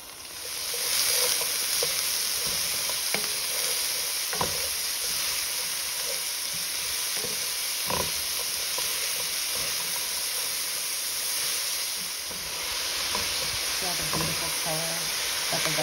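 Diced onions, carrots and scallions sizzling loudly in hot oil and oxtail drippings in a pot. The sizzle jumps up about a second in as the vegetables go in, with a few sharp clicks of the stirring utensil.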